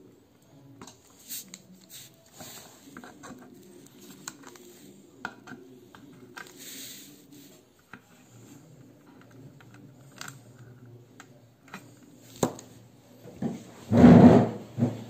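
Fingers handling a radio's metal chassis and its wiring, with faint scattered clicks and scraping. One sharp click comes near the end, followed by a louder muffled handling noise.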